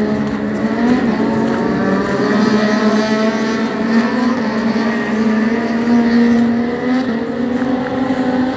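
Motorcycle engines running steadily, several overlapping engine tones that slowly rise and fall in pitch.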